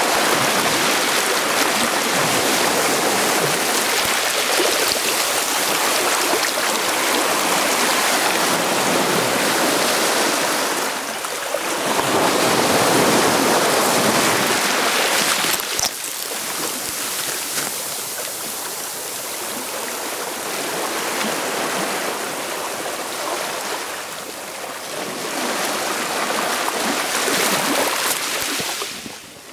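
Sea surf: waves washing in and breaking in a steady rush that swells and eases, loudest about twelve seconds in and again near the end.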